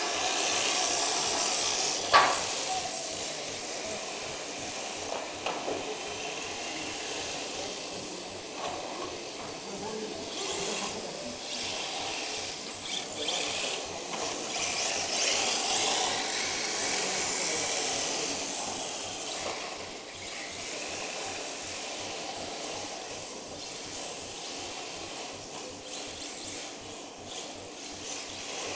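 Radio-controlled drift cars' electric motors whining, the high whine rising and falling as the cars accelerate and slide around the track. A sharp knock about two seconds in.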